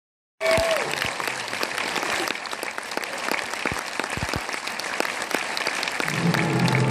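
Audience applauding, many hands clapping at once. Near the end, music starts up under the applause.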